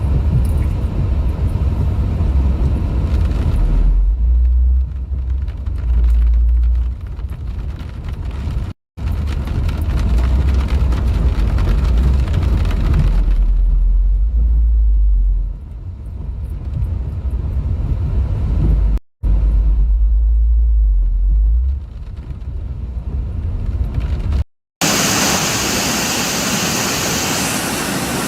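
Rushing floodwater across several cut-together clips, the first ones carrying a heavy low rumble under the rush. About 25 seconds in, the sound changes to a loud, even roar of water.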